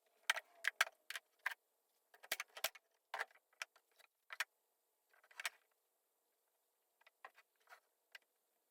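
A series of irregular light clicks and knocks, as of small hard objects or tools being handled, thickest in the first half and thinning out near the end.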